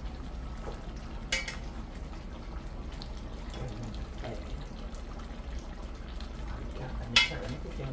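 Fish stew simmering in a pot over a steady low hum, with two sharp metal clinks against the pot: a light one about a second in and a louder one near the end.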